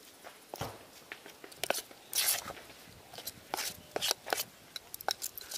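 Steel spoon stirring and scraping thick batter in a large aluminium pot: irregular clinks and scrapes of metal on metal, with a longer scrape about two seconds in.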